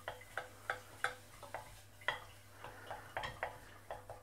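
Wooden spoon stirring shallots in a stainless steel saucepan, knocking against the pan's side in light, uneven taps about three a second, each with a brief metallic ring.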